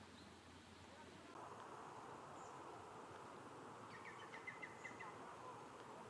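Faint outdoor ambience: a low hiss that swells slightly about a second and a half in, and a quick run of about seven short, high chirps about four seconds in.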